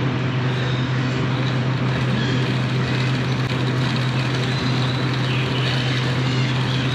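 Motorcycle engine running at a steady cruise with a constant hum and rushing wind noise, as heard while riding.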